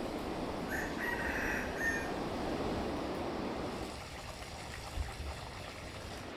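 A rooster crowing once, about a second in, over a steady background hiss.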